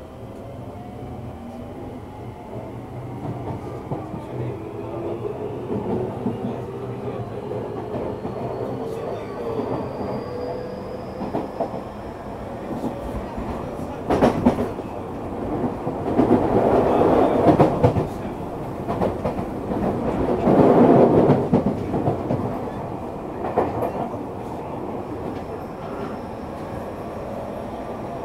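Tokyu 3000 series electric train under way, heard from inside the car: the traction motor whine rises steadily in pitch as the train accelerates. In the second half the wheel-on-rail running noise swells loudly twice.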